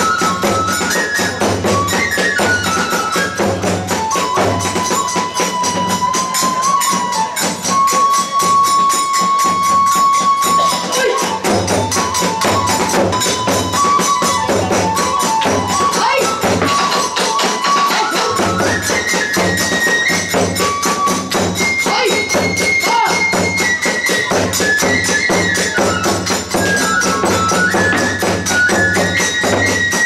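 Hiroshima kagura music: a bamboo flute melody stepping up and down over a pounding large drum and a fast, steady clash of small hand cymbals, driving a sword-fight scene. The drum drops out briefly twice in the middle.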